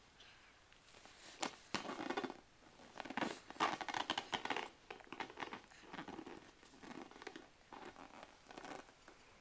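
Bursts of rustling and crinkling with small clicks, in three or so clusters, the loudest in the middle.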